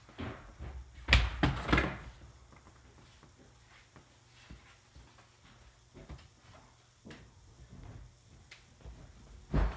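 A quick cluster of knocks and thumps about a second in, then faint small clicks and bumps, and one more thump near the end.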